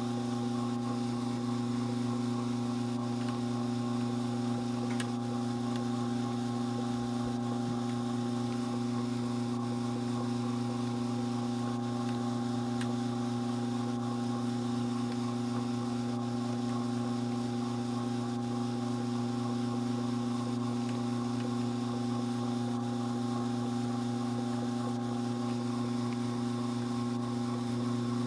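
Strauch Mad Batt'r electric drum carder running, its motor giving a steady, even hum as the drums turn and dog hair is fed in.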